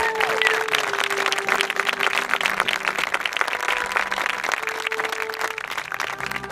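A crowd of guests applauding steadily as the newly married couple walks back up the aisle, with a few faint held musical notes underneath.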